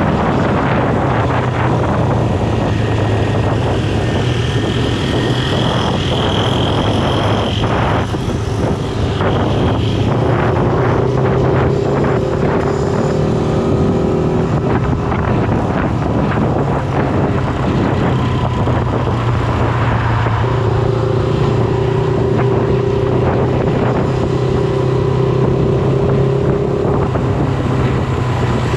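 Shineray SBM 250S motorcycle engine running while riding, its note mostly steady, with wind rushing over the microphone. The engine note eases briefly about eight seconds in.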